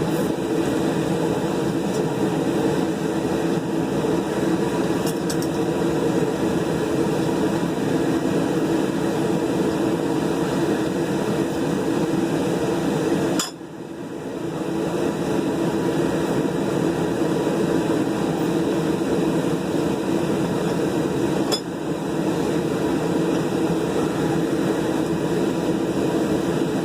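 Steady whooshing roar of shop equipment running, such as a forge burner or blower, with a few faint metal clinks. The roar drops out sharply about halfway through, comes back, and dips briefly once more near the end.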